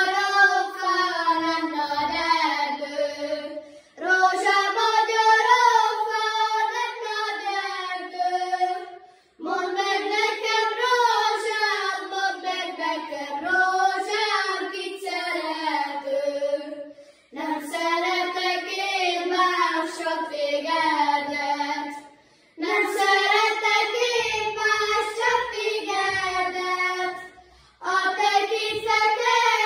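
Children singing a Hungarian folk song of the Gömör charcoal burners, unaccompanied. It goes in sung lines of about four to five seconds with short breaks between them.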